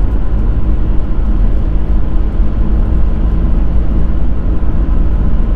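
VW Caddy van driving: a steady low rumble of engine and tyre noise on the road.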